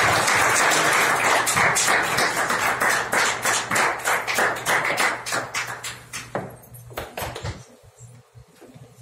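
A small group applauding, the rapid clapping thinning out to a few last claps and dying away after about six seconds.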